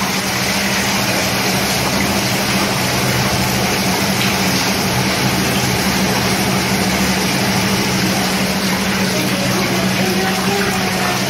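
Hydromassage bathtub's 700-watt circulation pump running with a steady hum while its jets churn and bubble the water in the filled tub, on its first test run.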